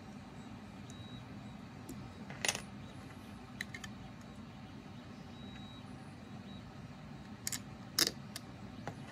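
A few sharp clicks and small clinks of small hardware and a 3D-printed plastic part being handled at a stepper motor mount, the loudest about two and a half seconds in and again near the end, over a steady low hum.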